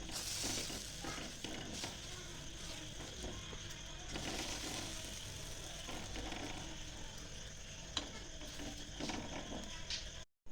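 Steady sizzling of a jowar (sorghum) bhakri cooking on a hot griddle, with a few small knocks and scrapes toward the end.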